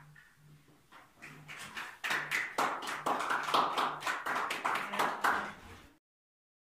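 A small audience clapping, starting about two seconds in and cut off abruptly near the end.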